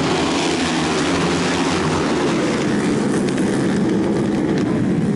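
A pack of road-racing motorcycles at high revs going by together, their engines blending into one loud, dense, steady din.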